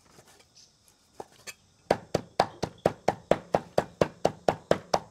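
A knife chopping raw pork into coarse mince for meatballs. After a couple of light taps, steady chopping starts about two seconds in, at about four strokes a second.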